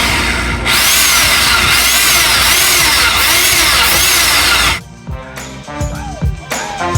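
Power drill driving a SureWinder winding tool on a commercial garage door torsion spring, its whine rising and falling in repeated arcs under the load. It stops suddenly about five seconds in, and upbeat music with a steady beat follows.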